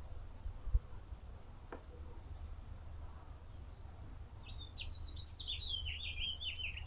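A small songbird sings a fast, jumbled run of short high chirps and trills, starting a little past halfway. Underneath is a steady low rumble, with a brief low bump near the start.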